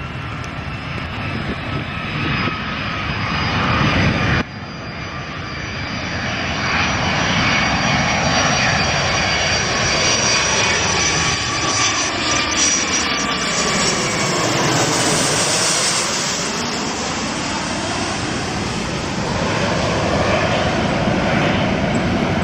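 Jet airliners on landing approach passing low overhead: a loud jet roar with a high steady whine, cut off abruptly about four seconds in. A second approach by a Boeing 757 with gear down then builds, sweeping down and back up in pitch as it passes directly overhead, and stays loud as it moves on.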